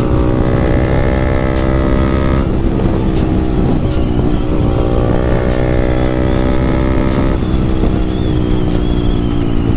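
Yamaha MT15's single-cylinder 155 cc engine running through a loud aftermarket exhaust while riding, held at steady revs twice with the pitch sagging slightly. Between and after those stretches, around two and a half seconds in and again near the end, the note breaks up as the throttle changes.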